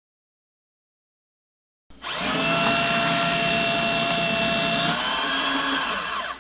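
Silence, then about two seconds in an electric paper shredder starts up and runs with a steady whine. The whine changes about a second before the motor cuts off at the end.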